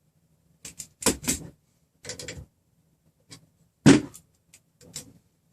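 A string of short knocks, clicks and scrapes of metal parts being handled, as a rod on a 3D printer frame is nudged into place and checked with calipers. The loudest knock comes about four seconds in.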